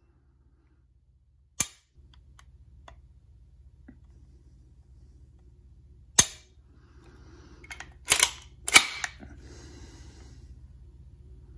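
Hi-Point 995TS 9mm carbine being dry-fired: sharp metallic clicks of the trigger and action. One click comes about a second and a half in, another about six seconds in, then a louder close pair about two-thirds of the way through.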